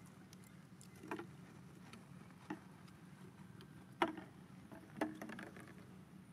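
Four light, sharp clicks about a second apart over a faint steady background, the loudest about four seconds in.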